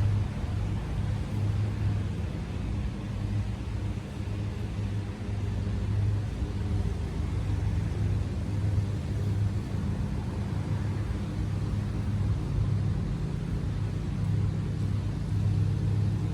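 Steady low mechanical hum with a gently pulsing low tone and no break.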